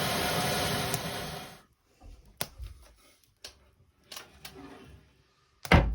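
A gas-canister burner hisses steadily as it lights the fireplace kindling, then is shut off about a second and a half in. Faint clicks follow, and a loud knock comes near the end.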